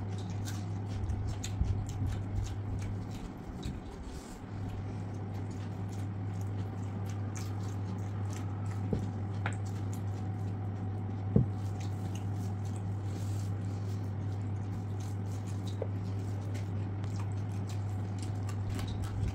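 Eating by hand: fingers squishing and mixing rice with chicken curry, with small wet clicks of chewing, over a steady low hum that drops out briefly about three to four seconds in. A single sharp knock about eleven seconds in is the loudest sound.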